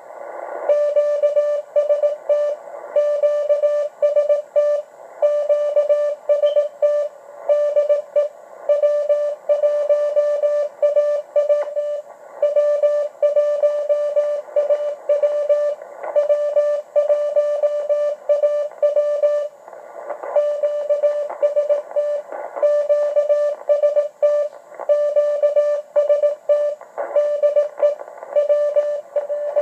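Morse code (CW) from W1AW's code practice transmission, received on a Yaesu HF transceiver in the 40-metre band: a single steady mid-pitched tone keyed on and off in dits and dahs at an even pace. Faint receiver hiss fills the gaps between characters and words.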